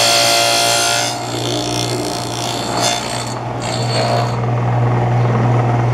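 Table saw with a dado blade cutting a finger-joint notch in a board, the high whine of the cut ending about a second in. The saw keeps running with a steady hum, with lighter scraping of wood against the blade until about four seconds in.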